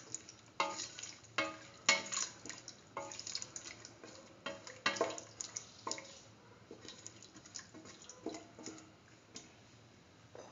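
A spatula stirring chunks of potato and bell pepper in a watery stew in a metal pot: irregular knocks and scrapes against the pot, some with a brief ring, over wet sloshing. The strokes thin out after about six seconds.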